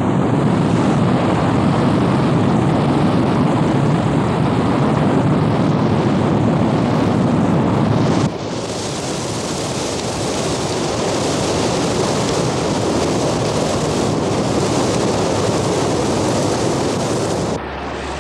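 Roar of a forest fire burning in high wind: a loud, steady rushing noise. About eight seconds in it changes abruptly to a brighter, hissier rush, and it drops in level near the end.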